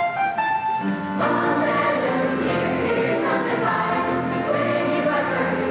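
Middle school children's choir singing a Christmas song with accompaniment: a few single instrumental notes lead in, and the choir comes in about a second in and sings on steadily.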